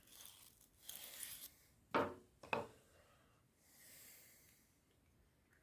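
Quiet handling of the stripped-down spark plug parts on a workbench: a light rubbing, then two sharp taps about half a second apart, then a soft hiss.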